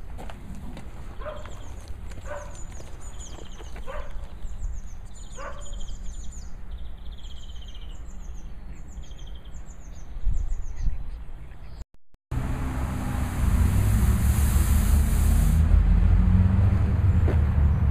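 Small birds chirping in quick runs of falling notes, with a few short sharp calls lower down. After an abrupt cut, a much louder steady low rumble with hiss takes over: road traffic at the bridge over the canal.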